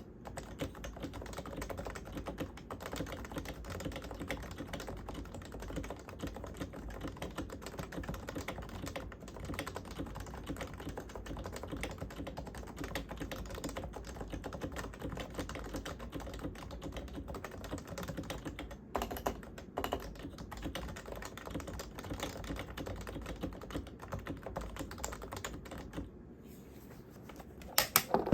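Continuous fast typing on a Topre Realforce R1 87UW tenkeyless keyboard, its electro-capacitive rubber-dome switches with sliders lubed with Tribosys 3204. There are a few louder strokes about two-thirds of the way through and again near the end.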